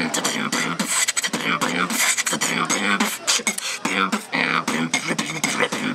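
A person beatboxing: fast rhythmic mouth clicks and sharp percussive sounds mixed with short voiced hums.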